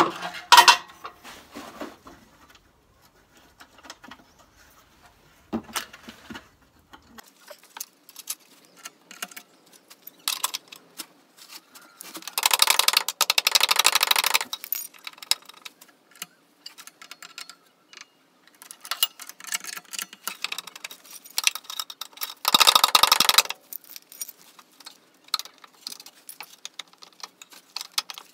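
Metal hand tools clinking and rattling during work on a car's engine mounts, with scattered sharp knocks. Twice there is a stretch of rapid, dense clicking, once for about two seconds near the middle and once for about a second later on.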